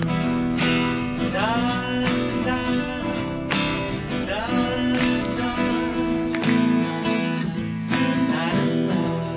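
Acoustic guitar played live in a song, with a few notes that slide up in pitch.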